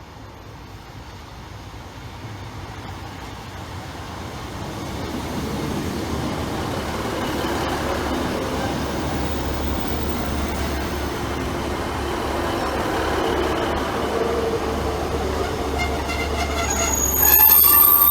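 A train approaching, its rumble and rail noise building over the first few seconds to a steady loud run. Near the end, high-pitched wheel squeal breaks in suddenly.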